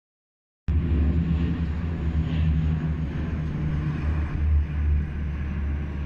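Two small fixed-wing planes flying overhead, their engines droning steadily. The sound cuts in abruptly less than a second in, after silence.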